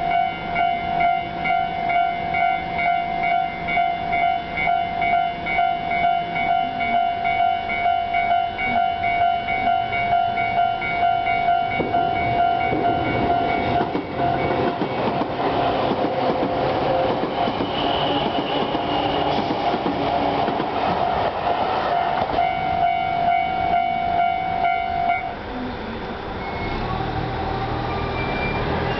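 Japanese railway level crossing's electronic warning bell ringing in a steady two-tone pulse about twice a second. Midway a train passes through the crossing with a long rush of wheel and rail noise. The bell cuts off about four seconds before the end as the crossing clears.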